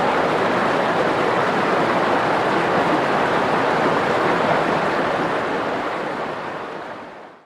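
Waterfall: a steady rush of falling water that fades out over the last two seconds or so.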